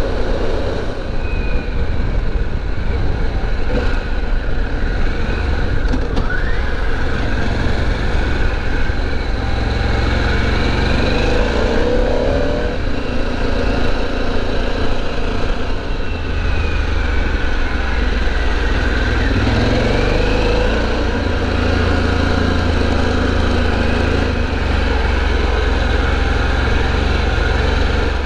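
Harley-Davidson Pan America's V-twin engine running steadily while riding on the road, heard together with wind and road noise. The engine note shifts several times as the speed changes.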